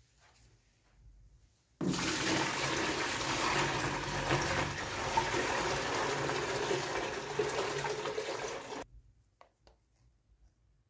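A stream of water pouring and splashing into an empty clear plastic tub. It starts abruptly about two seconds in and cuts off about seven seconds later, followed by a few faint clicks.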